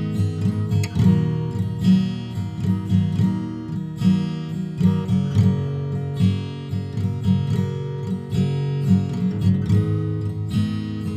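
Background music: a guitar strummed in a steady rhythm.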